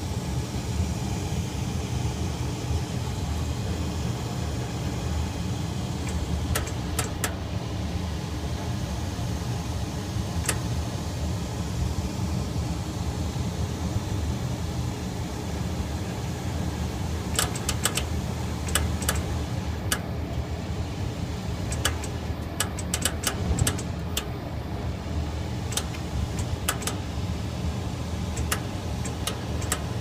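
Gas furnace burners running: a steady low rumble with scattered sharp clicks, a few early on and many more, in little clusters, through the second half.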